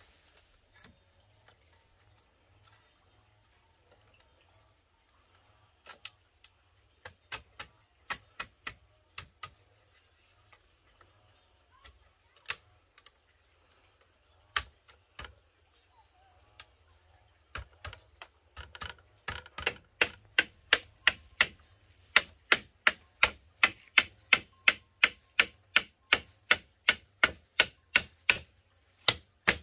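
Chopping strikes on wood or bamboo: a few irregular blows at first, then a steady run of sharp chops about two a second from around two-thirds of the way in. A steady high insect drone runs underneath.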